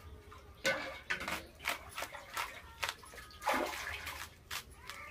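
A knife cutting lengthwise through a raw banana flower, making a string of about a dozen sharp, irregular crunching cuts that begin about half a second in.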